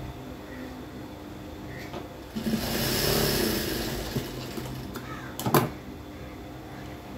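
Sewing machine stitching a short run of about two seconds, starting a little after two seconds in, then a few sharp clicks, the last of them the loudest sound. A steady hum runs underneath throughout.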